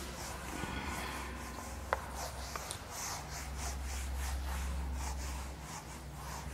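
Duster wiping a whiteboard clean in quick back-and-forth strokes: a soft rubbing swish repeated about three times a second, over a steady low hum.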